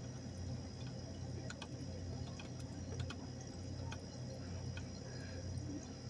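Faint scattered clicks of a brass valve-core removal tool being turned by hand on a refrigeration line's Schrader valve port, over a steady low hum.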